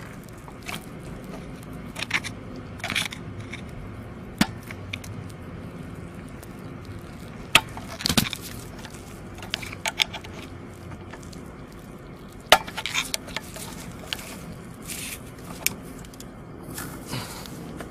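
Scattered sharp metallic clicks, taps and light scrapes of small metal parts being handled at the throttle linkage and ball joint of a Mercedes V8 throttle body, over a faint steady hum. Two clicks, about a third and two thirds of the way through, are much louder than the rest.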